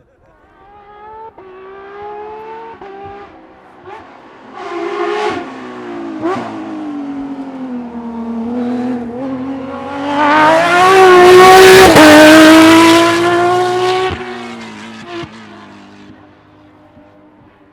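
Rally car at full throttle coming through a curve and passing by, its engine note climbing in steps through several gear changes, with a few sharp cracks. It is loudest about eleven to twelve seconds in, then fades into the distance.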